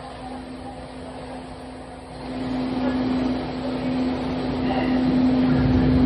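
Siemens S200 light rail vehicle heard from on board: a steady electrical hum under rumbling running noise that grows louder from about two seconds in and again near the end.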